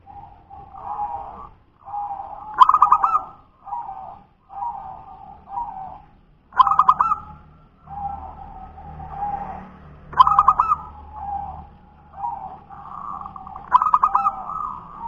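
Zebra dove (perkutut) singing its cooing song. A loud, rapid, stuttering phrase comes four times, about three and a half seconds apart, with softer low coos in between.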